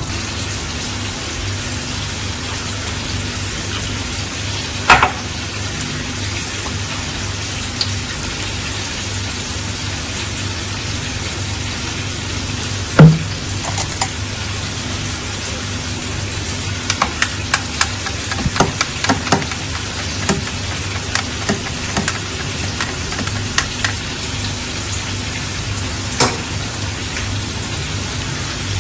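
Chicken drumsticks and french fries deep-frying in hot oil: a steady sizzle, broken by a few sharp clicks and knocks, the loudest about halfway through, and a run of small clicks later on.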